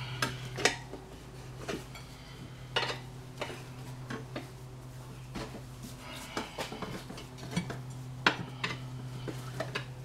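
Steel tyre irons clinking and knocking against a motorcycle wheel rim as a tyre bead is levered on, with about a dozen sharp metallic clicks and a couple of stretches of scraping, over a steady low hum.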